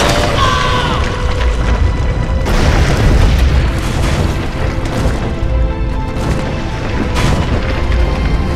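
Deep, continuous rumbling with heavy booms of earth cracking and rock bursting up out of the ground, a giant rock monster awakening, over dramatic music.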